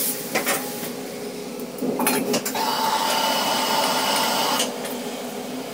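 Commercial kitchen's wok burner and exhaust hood running with a steady hum, with a few clanks of metal cookware. A louder rushing noise swells from about two and a half seconds in and drops away near four and a half seconds.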